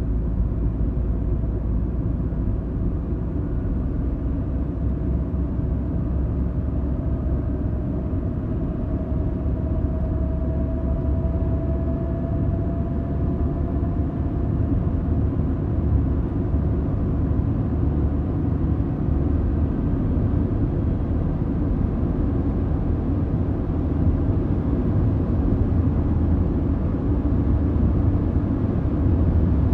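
Honda Accord engine heard from inside the cabin, running steadily at a low, rumbling idle, with a faint tone rising slightly about a third of the way through.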